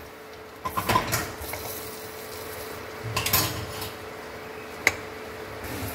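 A spatula scraping and tapping against a non-stick frying pan while an egg omelette with pickled radish fries in it. There are two short spells of scraping and one sharp tap near the end, over a faint steady hum.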